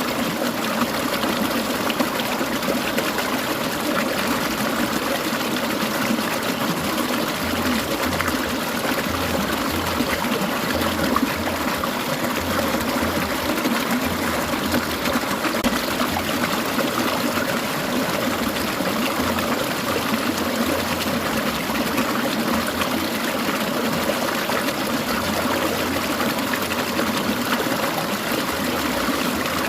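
A clear mountain stream babbling and trickling in a steady rush, with a low gurgle that comes and goes from several seconds in.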